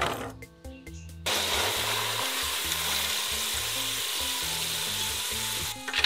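French fries deep-frying in a pot of hot oil: a steady sizzle that starts about a second in and stops shortly before the end, over background music with a low bass line.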